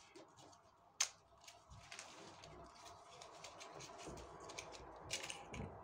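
Faint handling of a mascara's packaging: one sharp click about a second in, then a run of small irregular clicks and rustles as it is taken out.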